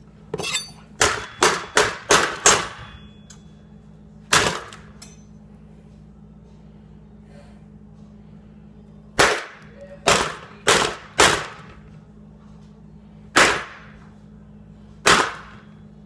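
Sharp knocks: a quick run of about six in the first few seconds, a single one a little later, a run of four in the middle, and two single knocks near the end, over a faint steady hum.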